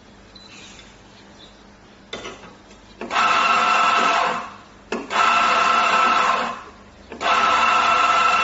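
Impresso Z64 on-demand coffee grinder with 64 mm burrs, its motor running in three bursts with a steady whine. It starts about three seconds in and spins down, starts again just after a click and spins down, then starts once more near the end.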